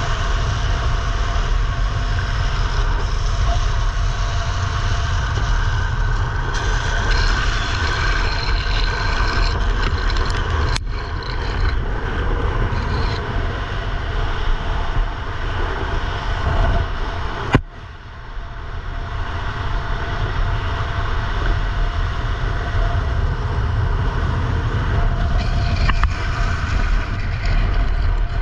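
Wind rushing over a helmet-mounted camera at downhill-skateboarding speed, mixed with the steady roar of longboard wheels rolling on asphalt. Two sharp clicks, the second a little past halfway and followed by a brief drop in level.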